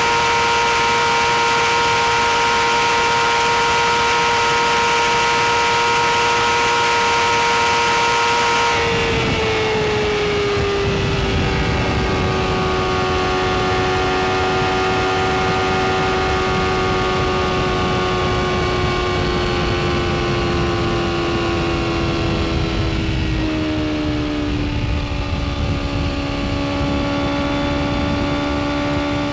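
BMW S1000RR's inline-four engine running at high revs with heavy wind rush. About nine seconds in, the engine note glides down and the wind noise eases, and near the end the pitch drops another step.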